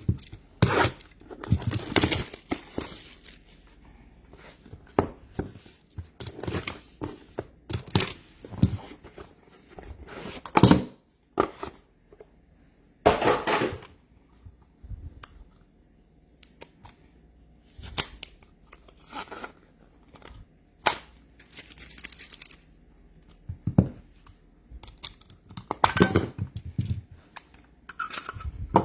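Trading card pack wrappers being torn open and crinkled, with cards and packaging handled: irregular tearing and rustling, a few longer rips among short crackles and knocks.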